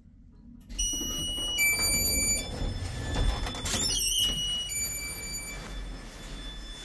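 A small hydraulic lift arriving and its doors opening: from under a second in, steady high electronic tones that shift in pitch a couple of times over a mechanical rumble, and a brief warbling squeal about four seconds in as the landing door is pushed open.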